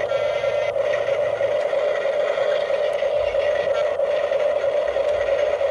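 Small electric motor and gearbox of a radio-controlled model vehicle running with a steady whine.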